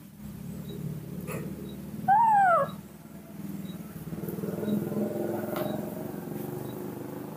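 A baby monkey feeding from a milk bottle makes soft, continuous low vocal sounds. About two seconds in it gives one loud high call that rises and falls.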